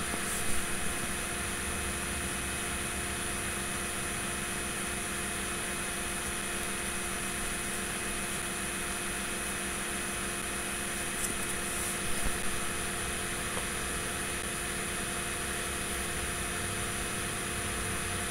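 Steady room tone: a low electrical hum and hiss, with a few faint clicks just after the start and again around twelve seconds in.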